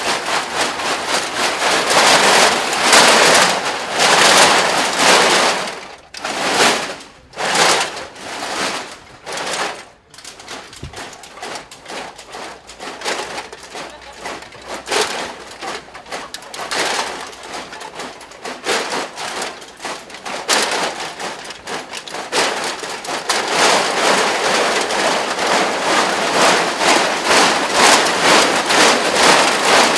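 Crushed aluminium cans covering full-body costumes rattling and clattering as the wearers move, a dense jangle of many small metal clicks. It thins to scattered clinks through the middle and swells again toward the end.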